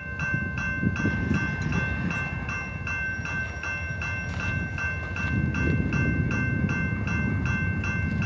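Railroad grade-crossing warning bell ringing steadily, about three strikes a second, over a low rumble; the crossing has been activated for an approaching train.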